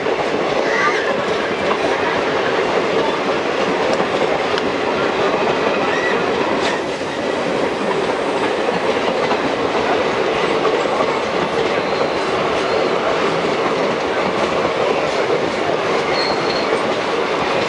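Passenger train coaches rolling past over the rail joints: a steady rumble with clickety-clack from the wheels, and a brief high wheel squeal near the end.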